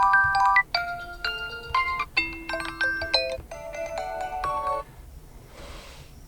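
TCL Tab 10 alarm tones played through the tablet's speaker: a melody of quick, bright chiming notes breaks off under a second in, and a second melody starts at once and stops about five seconds in.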